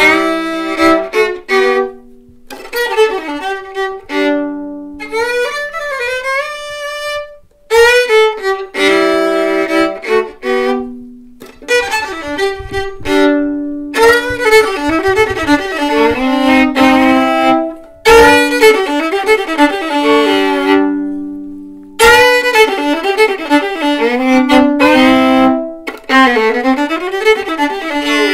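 Solo fiddle played with a bow in a run of short phrases broken by brief pauses, some held notes wavering in pitch.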